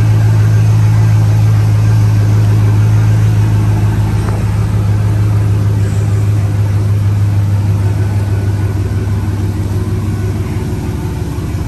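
GMC single-cab pickup truck's engine running at low speed with a steady deep drone as the truck creeps forward, easing off slightly near the end.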